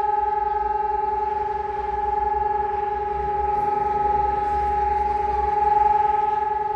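Civil defence sirens holding a steady test tone: a SiRcom ESp 750 Maestro electronic siren together with a DS 977 siren, one unchanging pitch with overtones, swelling and fading slightly in loudness.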